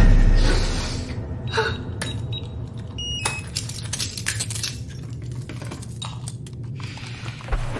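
A sudden deep boom, then a few seconds of scattered metallic clinks, rattles and short high pings over a low steady hum.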